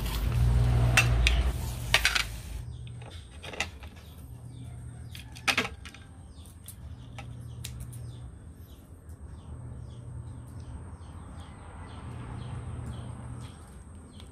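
Metal tongs and then a fork clicking and scraping against grilled giant mussel shells and a plate, with a sharp clink about five and a half seconds in. A low rumble sits under the first couple of seconds.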